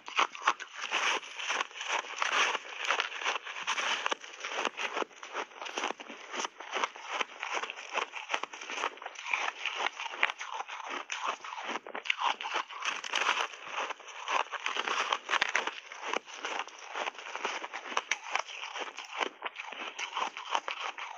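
Reshaped ice with mixed fruit being bitten and chewed close to the microphone: continuous, dense crunching and crackling as the ice breaks up between the teeth.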